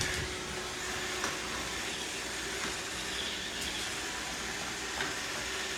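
Robot vacuum cleaner running steadily: a constant whirring hum with a faint steady tone and a few light clicks.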